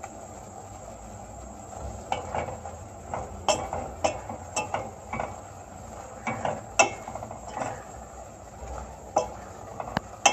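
A spoon stirring chunks of chicken and lentils in a stainless steel pot, scraping and knocking irregularly against the pot from about two seconds in, over a steady hiss.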